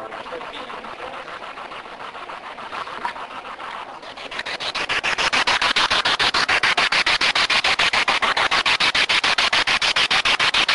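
Pulsing static from a radio sweeping rapidly through stations, a ghost box, chopped many times a second. It is moderate at first and grows louder and brighter about four seconds in.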